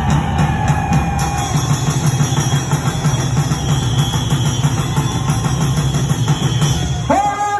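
Loud, steady din of a large crowd and music from the ceremony loudspeakers, heard as a dense rumble. Near the end a soldier starts a long, drawn-out shouted command.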